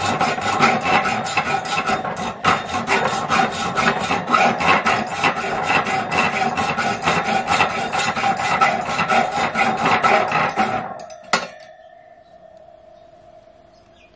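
Small hacksaw rasping back and forth through a coated steel wire shelf in quick, even strokes, cutting slowly: 'it's doing it, but not easily'. The sawing stops about eleven seconds in, followed by a single knock.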